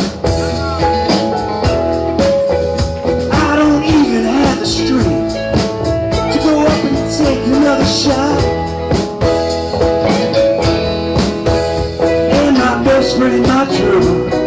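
Live blues-rock band playing an instrumental passage: electric guitars, bass guitar, a Nord Electro keyboard and drum kit, with a lead line of notes bending up and down over the steady chords.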